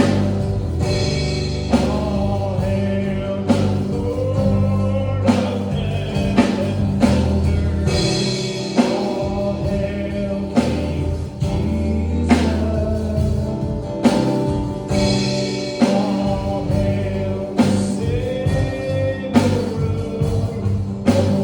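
Live gospel-style worship music: a group of voices singing a praise song over a band with a steady beat and bass line.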